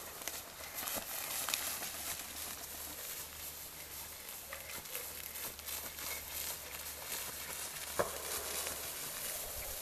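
Tall grass rustling as a wheaten terrier puppy and a person run through it, with a few faint footfalls and clicks.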